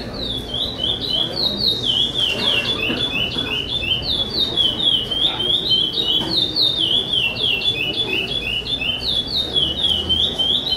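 A caged pássaro-preto charrua (chopi blackbird) singing a long, unbroken run of quick, repeated, sharply falling whistled notes, several a second. This is the repeated-phrase song judged in a 'repetição' (repetition) singing contest.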